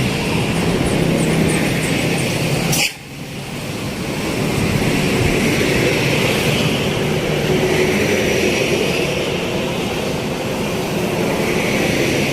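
Steady road-vehicle noise of engines and tyres, with no horn tune standing out. About three seconds in there is a sharp click, the level drops abruptly, then it builds back up.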